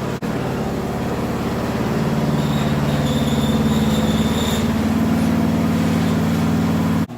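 Engine running steadily with an even low pulse, stopping abruptly near the end.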